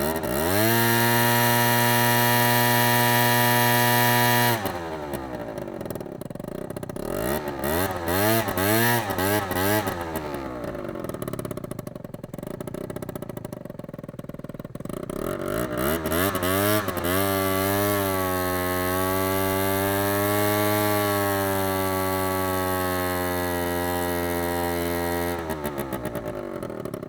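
Two-stroke scooter engine revved up quickly and held at high revs, then dropping back. It is blipped through a few quick rises and falls, runs lower for a while, then is revved up again and held high for several seconds before easing off near the end.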